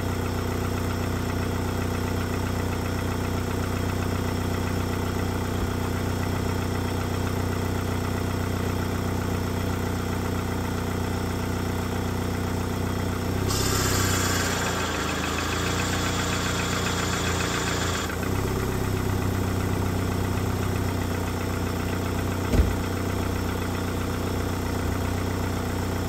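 Car engine idling steadily with the air conditioning switched on, the A/C now working after a blown fuse was replaced. A rushing hiss joins in for about four seconds midway, and a single sharp click comes near the end.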